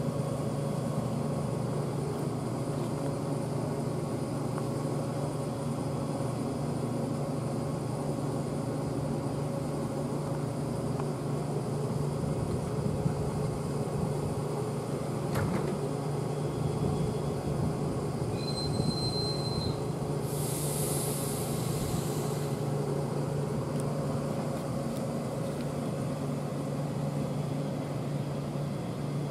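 Steady hum of a standing ED4M electric train's onboard machinery. About two-thirds of the way through there is a short high beep, then a hiss of released air lasting about two seconds.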